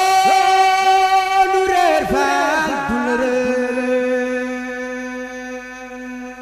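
A solo voice chanting a Baye Fall devotional chant without accompaniment, holding long drawn-out notes. A high held note breaks into quick ornamental turns about two seconds in, then the voice settles on a long low note that slowly fades.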